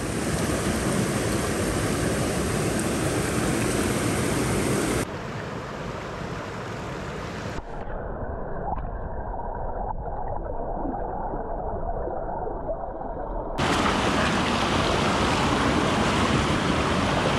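Steady rush of a small mountain creek. About five seconds in it turns muffled and dull as it is heard from under the water, the high end dropping out almost entirely a couple of seconds later. It switches back abruptly to the open, full rush of the creek about three-quarters of the way through.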